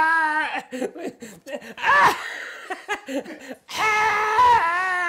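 A man's exaggerated, theatrical laughter in long held cries: one trailing off in the first half-second, a short one about two seconds in, and another long one from near four seconds in.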